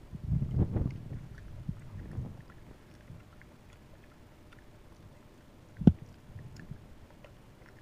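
Java macaque eating soup with her fingers from a mug: faint chewing and lip-smacking ticks, a low rumbling in the first two seconds, and one sharp knock about six seconds in.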